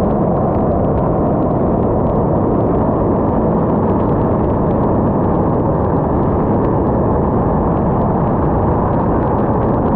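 Seamax light-sport amphibian in flight: a loud, steady rush of wind over a wing-mounted camera, with the drone of the engine and propeller underneath.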